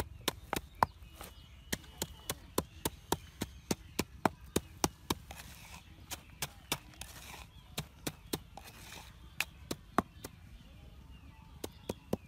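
Wooden pestle pounding salt and red chillies in a mortar: sharp knocks, about three a second, with a short pause near the end.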